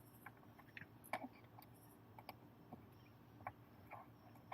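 Faint, scattered small clicks, about two a second at irregular spacing, from a hex driver working the motor-mount screws of a 1/8 RC truggy as they are tightened down, over a low steady room hum.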